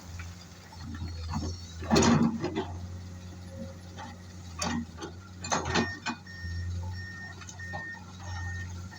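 Heavy diesel engine of an excavator running steadily, with loud knocks and clatter of the bucket and load, the loudest about two seconds in. From about six seconds a backup alarm beeps steadily, about twice a second.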